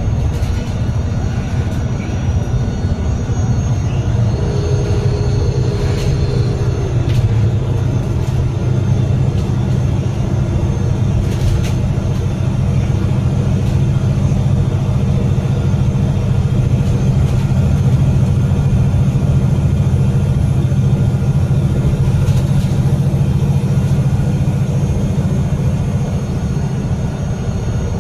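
Cummins L9 inline-six diesel engine of a double-decker bus, heard from the rear seats close to the engine, running steadily with the bus under way: a steady low drone with road and tyre noise over it.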